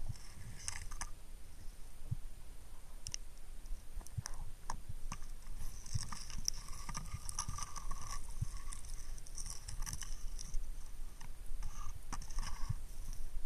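Underwater sound picked up by a submerged camera: irregular clicks and crackles over a steady low rumble, with a longer hissing stretch from about six to nine seconds in.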